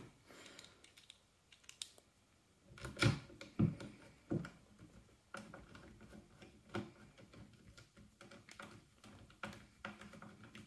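Plastic and metal parts of an airsoft AK rifle being handled and fitted together by hand, giving scattered light clicks and knocks; the loudest three come about three to four and a half seconds in, followed by fainter single ticks.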